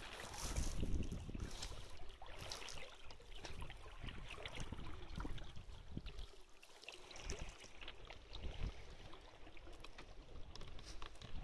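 Water splashing and lapping against the hull of a small sailboat under sail, with uneven gusts of wind buffeting the microphone.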